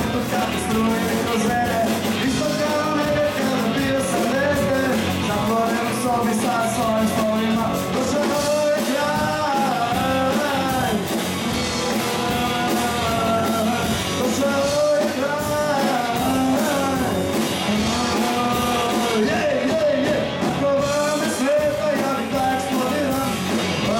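A rock band playing live, a lead vocal sung over electric guitars and a steady drum beat.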